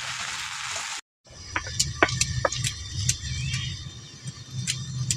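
Arum stalks and potatoes frying in hot oil in a kadai, a steady sizzle that cuts off after about a second. Then a grinding stone worked back and forth on a flat stone slab (sil-nora): a low rhythmic rumble of stone on stone with many sharp clicks.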